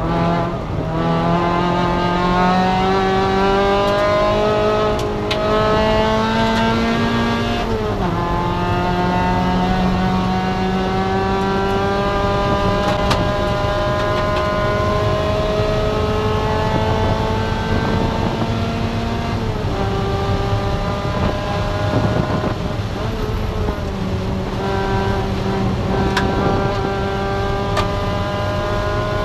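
Spec MX-5 race car's four-cylinder engine running hard at full throttle, its pitch climbing slowly over long stretches. The pitch drops or breaks off about 8 seconds in, near 20 seconds and again near 24 seconds before it climbs again.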